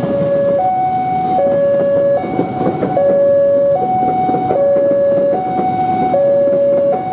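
Railway level-crossing warning alarm sounding a two-tone signal, a higher and a lower note alternating about every 0.8 seconds, over steady traffic noise. The alarm warns that a train is coming and the crossing gates are down.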